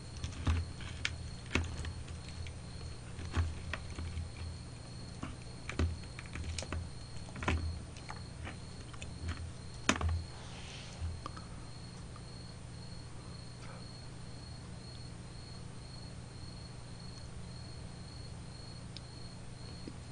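Metal fork clicking and scraping against lobster shell and the plate while meat is picked out: a scatter of short sharp clicks and knocks through the first half, then they stop.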